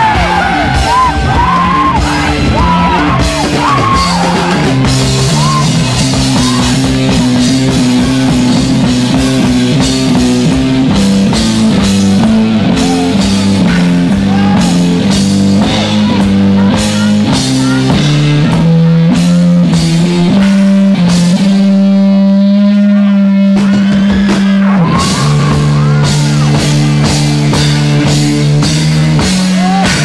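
Rock music: a band with drums, bass, guitar and singing. The drums drop out for a few seconds under a held note about three-quarters of the way through, then come back.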